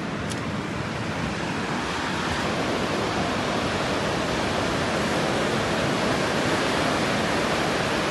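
Surf breaking and washing onto a sandy beach: a steady rushing hiss of waves that slowly grows a little louder.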